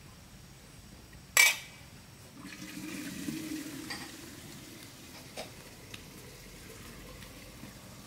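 A sharp clink of a hard object about a second and a half in, then water pouring for about two seconds, followed by a couple of light taps.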